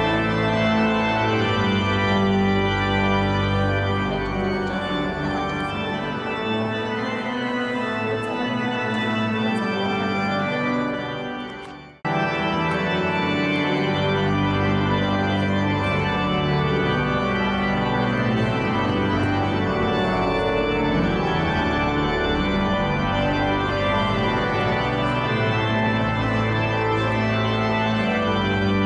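Church organ playing sustained processional chords. The music fades almost away about eleven seconds in, then cuts back in abruptly at full strength.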